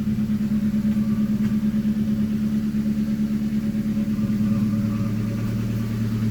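1998 Ford Escort ZX2's 2.0-litre four-cylinder engine idling with a steady, evenly pulsing hum; a lower drone joins about four seconds in. The car has an exhaust leak at the muffler.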